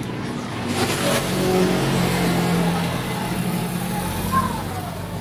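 A motor vehicle's engine running as it goes by, swelling about a second in and fading away near the end.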